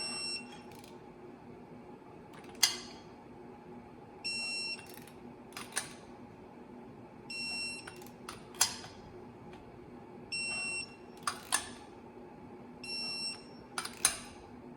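Torque wrench beeping a short alert each time a clutch pressure-plate bolt reaches the set torque of 60 ft-lb, five beeps about three seconds apart. A sharp click falls between each pair of beeps.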